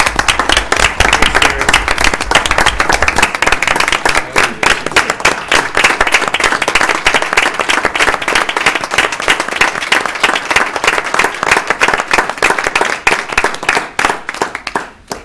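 A small crowd applauding steadily, thinning out and stopping near the end.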